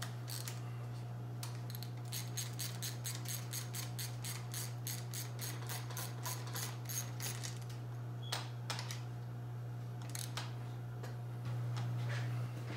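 Small hand ratchet clicking in a quick, even run, about four or five clicks a second, as screws are driven on an RC car's shock and front end, followed by a few single clicks. A steady low hum runs underneath and swells briefly near the end.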